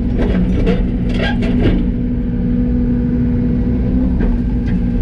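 Yanmar ViO80 mini excavator's diesel engine running steadily at working speed, with clanks and scrapes in the first two seconds and a couple more near the end as the bucket digs through buried scrap metal tanks.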